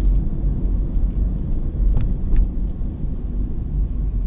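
Car cabin noise while driving slowly: a steady low rumble of tyres and engine, with a couple of sharp clicks about two seconds in.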